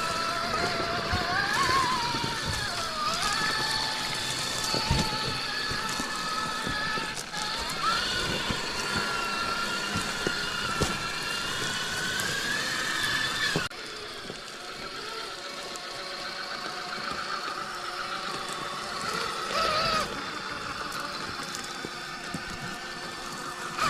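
Axial SCX6 Honcho RC rock crawler's electric drivetrain whining as it crawls, the pitch rising and falling with the throttle, with scattered clicks and knocks. The sound drops abruptly about two thirds of the way through, then carries on quieter.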